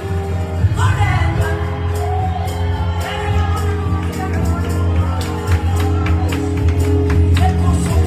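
Upbeat gospel worship music with a strong bass line, a sung vocal line and steady percussion hits.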